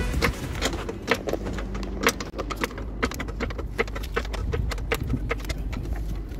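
Red hydraulic floor jack being worked under the car: a run of irregular light metallic clicks and clacks, about two or three a second, over a steady low hum.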